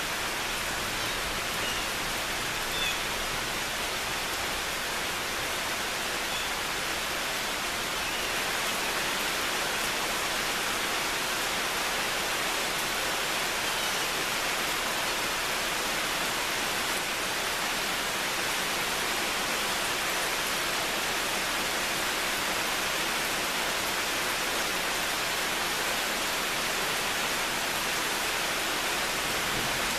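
Steady rain falling, an even hiss that grows a little heavier about eight seconds in.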